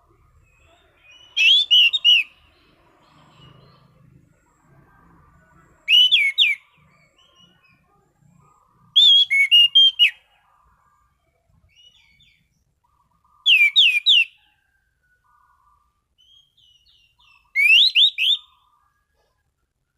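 Anis cendana (orange-banded thrush) singing in a clear, open 'ngeplong' style: five short phrases, one about every four seconds. Each phrase is a quick run of three to six clear whistled notes that slide up or down.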